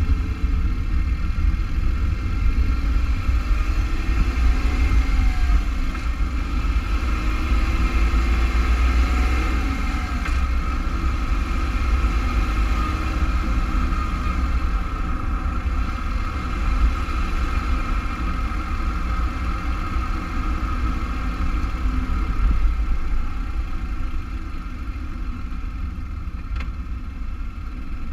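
2015 Mitsubishi Mirage's three-cylinder engine idling steadily, heard from underneath the car by the exhaust downpipe and transmission.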